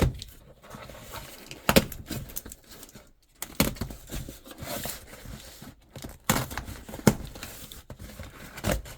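A mailer package being handled, with rustling and crinkling punctuated by several sharp knocks and clicks.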